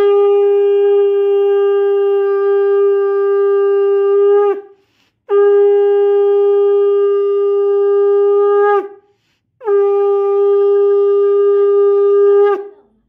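Conch shell (shankha) blown in three long, steady blasts with short breaks between them, each dropping in pitch as it cuts off: the customary conch call that opens a puja.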